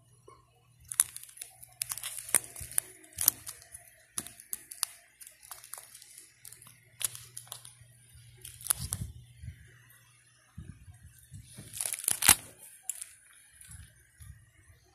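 Clear plastic coin-album pockets crinkling and crackling as fingers work a coin out of its sleeve, in irregular bursts of sharp crackles. The loudest burst comes about 12 seconds in.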